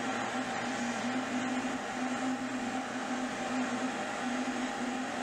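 Metal lathe running slowly, turning a rifle barrel in a four-jaw chuck against a dial indicator while it is dialed in for runout: a steady motor hum with a low tone that swells and fades slightly.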